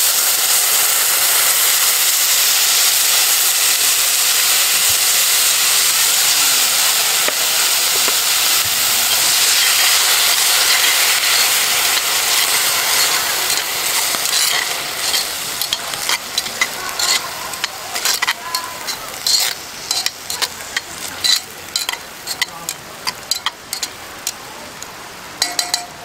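Canned tomatoes and onions frying in a hot cast-iron pot: a loud, steady sizzle that dies down after about fourteen seconds. After that comes the clicking and scraping of a metal spatula stirring against the pot.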